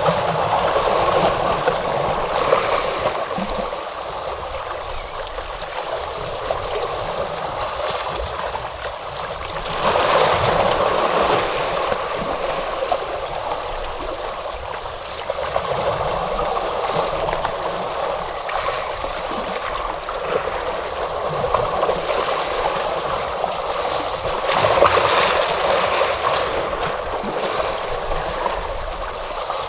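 Ocean waves washing on the shore: a continuous rush of surf that swells louder with each incoming wave, most strongly about ten seconds in and again near twenty-five seconds in.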